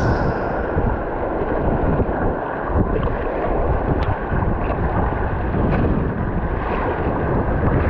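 Whitewater rushing steadily on the Salmon River, with wind buffeting the microphone.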